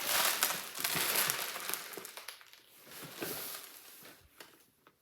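Loose birdseed pouring and rattling inside a cardboard shipping box as it is tilted, a rushing hiss like a rain stick, with the birdseed spilled from a torn bag. It is loudest at first and dies away over the last couple of seconds.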